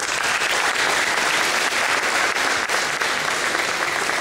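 Audience applauding, many hands clapping at once. It breaks out suddenly and holds steady.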